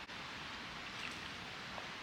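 Steady rushing of a flowing creek, with a faint short high chirp about a second in.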